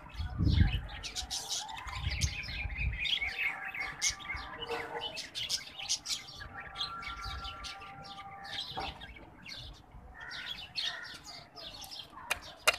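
Birds chirping and calling, over light clinks, scrapes and knocks of clay pots and a metal strainer being handled as soaked seeds are scraped into a clay mortar.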